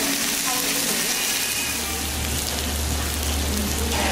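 Samgyupsal pork belly, sausage and rice cakes sizzling on a hot tabletop grill plate, a steady hiss of frying fat. A low steady hum joins in about a second and a half in.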